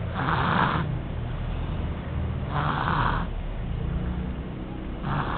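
A toddler snoring in her sleep, three breaths about two and a half seconds apart over a steady low drone.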